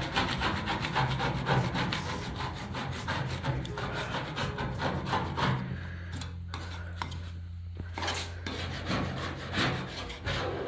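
Quick, repeated hand-scraping strokes on the painted metal of a truck bed, working off paint softened by chemical stripper. A steady low hum runs beneath the strokes for a couple of seconds in the middle.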